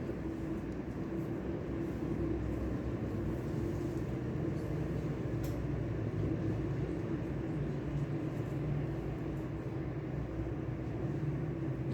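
Steady low ambient rumble with a held hum and a few faint ticks.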